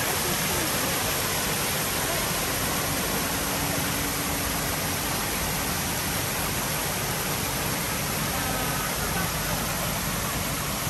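Water falling steadily over a small rock cascade into a garden pond, a constant splashing rush.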